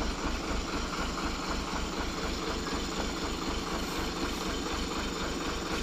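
Diesel engine of a loaded Mitsubishi Fuso dump truck idling steadily, an even low throb.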